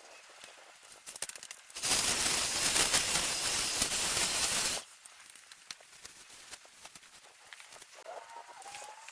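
A strong gust of wind rushing over the microphone for about three seconds, then a short bird call near the end.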